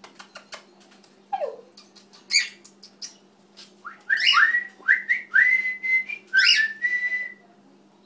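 Cockatiel chirps and whistling. A few soft clicks, a falling chirp and a harsh chirp, then from about four seconds in a run of short whistled notes, each sweeping up and holding at one pitch, with another harsh chirp among them.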